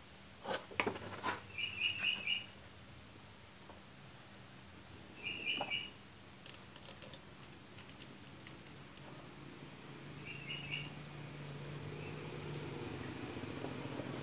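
Light clicks and knocks of parts being handled as the throttle body is fitted back onto a Honda Vario engine, a few sharp ones about half a second to a second in and another around the middle. A small bird chirps three short trills, and a low hum swells in near the end.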